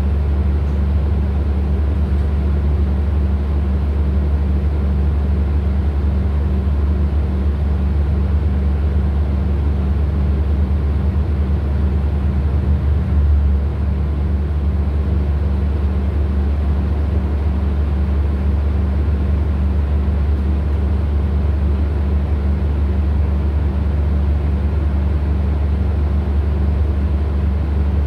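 Cummins ISL9 inline-six diesel engine of a New Flyer XDE40 hybrid bus idling steadily while the bus stands still, heard from inside the passenger cabin as a deep steady hum, with one brief swell about halfway through.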